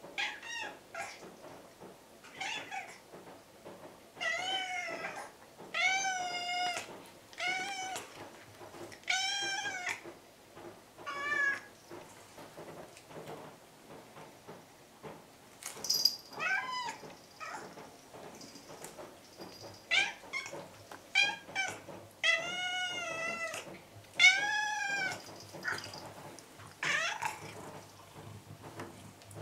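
Orange-and-white domestic cat meowing insistently, over and over: a dozen or more drawn-out calls that rise and fall in pitch, with short pauses between them.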